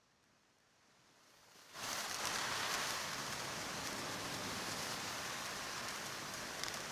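AI-generated sound effect (ElevenLabs): a faint hiss of noise that builds, jumps up suddenly about two seconds in, and then holds steady.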